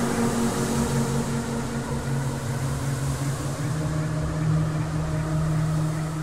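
Inside a vehicle's cab driving in strong wind: a steady low drone with rushing wind noise over it, the drone stepping up in pitch about halfway through.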